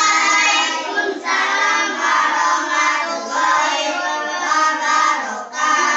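A group of children singing a song together, loud and continuous.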